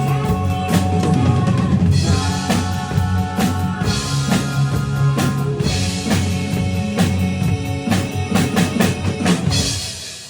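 Drum kit playing a fast beat of snare, bass drum and cymbal hits over a recorded backing music track, the music ending shortly before the close.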